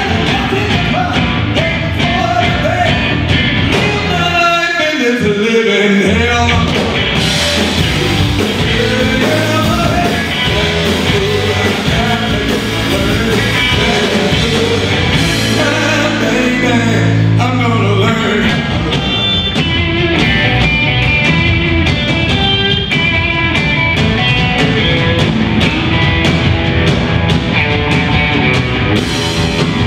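Live band playing rock and roll: electric guitars, bass and drums with a singer. About four seconds in the bass drops out briefly under a falling glide, then the full band comes back in.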